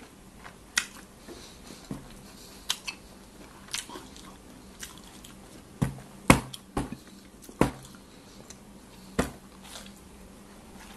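A person chewing a hot dog with open-mouthed lip smacks: irregular sharp wet clicks, sparse at first and louder and closer together in the second half.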